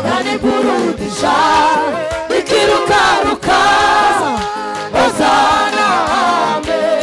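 Gospel worship singing: a lead female voice and a group of singers with vibrato, over a steady keyboard accompaniment.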